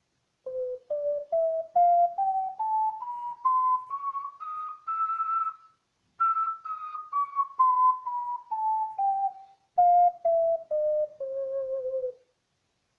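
An alto ocarina in C is played up its scale one short note at a time, from the low end to a held top note. After a brief pause halfway through, the same scale is played back down to the lowest note.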